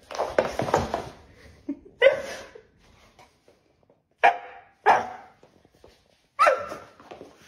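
A dog barking: a rapid run of barks at the start, then four single barks spaced a second or two apart.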